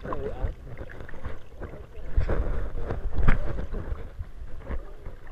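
Muffled underwater sound of a swimmer moving through lake water: low sloshing and rumbling with bubbles. There is a louder thump a little over three seconds in.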